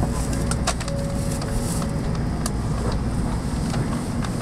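Busy station platform heard from a Shinkansen train standing at the platform: a steady low hum from the train, with passengers' footsteps and scattered sharp clicks. A faint steady tone lasts about two seconds near the start, and a sharp knock comes at the very end.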